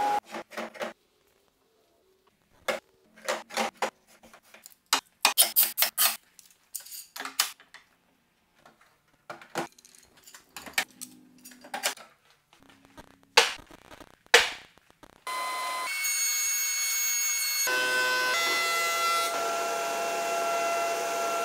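Irregular wooden knocks and metal clacks of bar clamps and hardwood blocks being handled and tightened on a glue-up, a few of them sharp and loud. About 15 seconds in, a thickness planer starts running steadily as walnut boards are fed through it.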